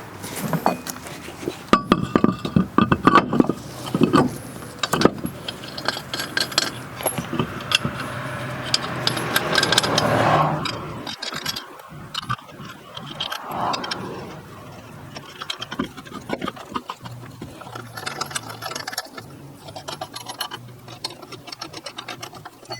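Temporary spare wheel knocking and scraping as it is fitted onto the hub studs, and steel lug nuts clinking as they go on. Sharp knocks in the first few seconds, and quick small metallic clicks near the end.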